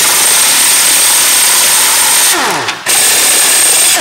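Impact wrench running on the front mounting bolt of a rear suspension trailing arm, undoing it. It makes a loud, steady hiss with a thin high whine, spins down about two and a half seconds in, then runs again for about a second before spinning down.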